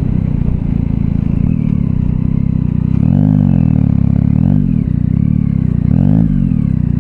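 Yamaha Tracer 9 GT's inline-three engine running under way, heard from the rider's seat. Its revs rise and fall twice: a longer swell about three seconds in and a short one near the end.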